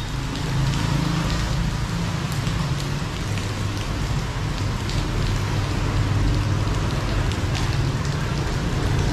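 Steady rain falling on a wet city street, with a low rumble of traffic on the wet road.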